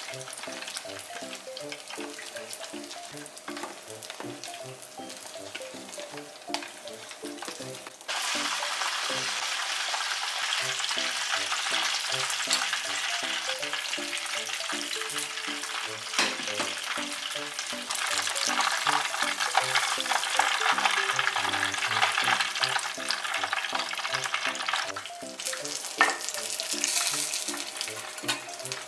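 Soft background music over the wet, scraping noise of a spoon stirring a thick oat, egg and baking-powder batter, which then gets spread into a container. The mixing noise jumps louder about eight seconds in and again a little past halfway, dropping back near the end.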